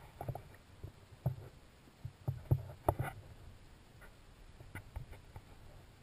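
Underwater sound picked up through a GoPro's waterproof housing: a low rumble of moving water with scattered muffled clicks and knocks, loudest in a cluster about two to three seconds in.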